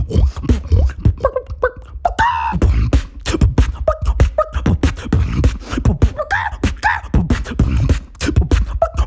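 Beatboxing: a rapid groove of vocal kick-drum thumps and sharp snare-like clicks made with the mouth, several hits a second, with short pitched vocal slides between the beats.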